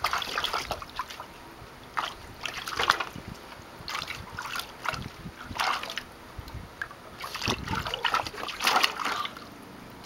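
A pug splashing the shallow water of a plastic kiddie pool, in irregular bursts as it steps about and dips its face in.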